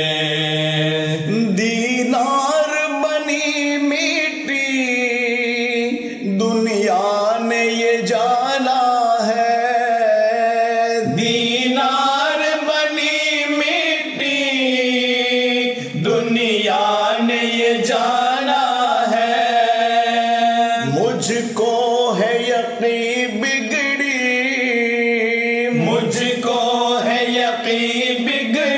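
Male reciters chanting an unaccompanied Urdu devotional ilteja (Dawoodi Bohra recitation), a melodic line sung in phrases of about five seconds with short breaks between them.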